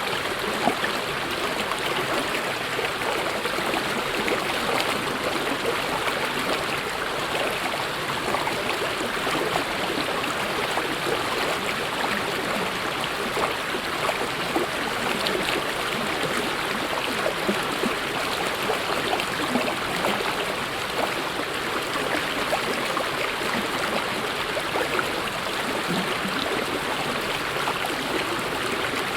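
Mountain stream flowing fast over rocks: a steady rushing of water with close bubbling and spattering.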